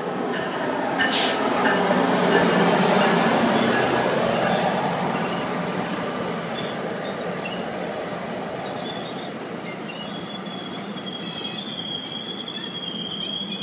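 NJ Transit locomotive and double-deck coaches rolling past close by as the train pulls into the station, loudest as the locomotive passes about two to four seconds in. From about ten seconds in, a steady high-pitched squeal from the wheels and brakes is heard as the train slows.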